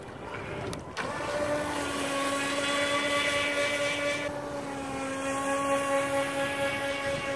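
FT009 RC speedboat's electric motor whining steadily as the boat runs flat out across the water, after a short click about a second in.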